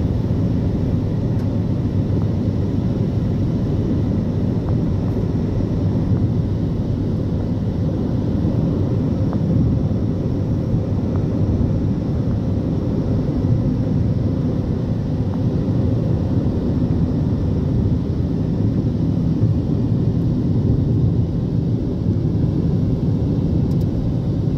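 Steady road noise of a car driving at speed on the highway, heard from inside the cabin: an even low rumble of tyres and engine.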